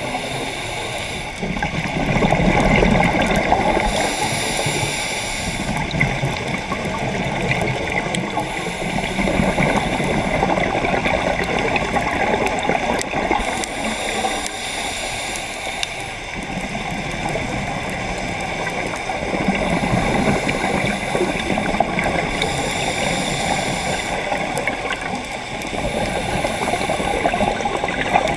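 Scuba diver breathing through a regulator, heard underwater: a high hiss on each inhalation, roughly every four to five seconds, alternating with bubbling, gurgling exhalations.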